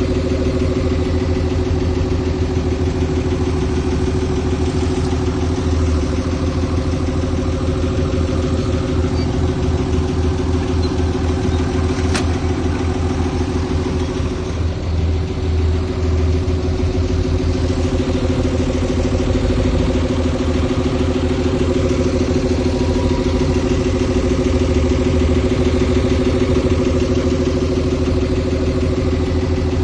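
Diesel engine of heavy earthmoving machinery running steadily at a low, even speed, with a single sharp click about twelve seconds in.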